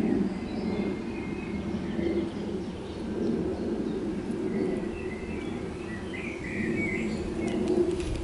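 Birds chirping and calling over a steady low outdoor rumble, with a busier burst of chirps near the end and a few light clicks.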